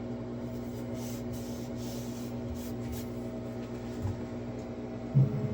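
Hands rubbing and pressing down tape, several short scuffing strokes, over a steady electrical hum from shop equipment. Near the end comes a thump, and the hum gets louder.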